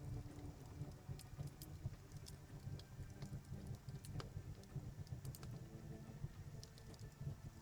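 Wood fire crackling in an outdoor fireplace: irregular sharp pops and snaps over a low rumble of flame.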